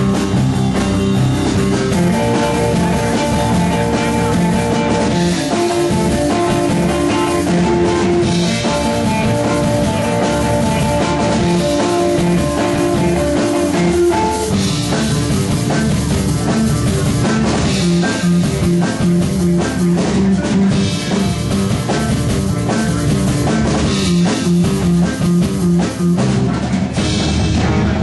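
Rock band playing live: electric guitars and a drum kit, with long held guitar notes ringing through the first half.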